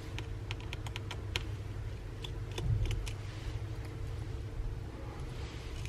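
A run of small, sharp clicks and ticks from a precision screwdriver and metal tools working tiny screws out of a tablet's internal frame, over a low steady hum. The clicks come in an irregular scatter, mostly in the first three seconds.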